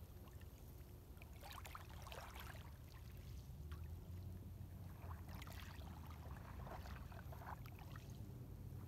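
Faint water lapping, with small irregular splashes and trickles over a steady low rumble.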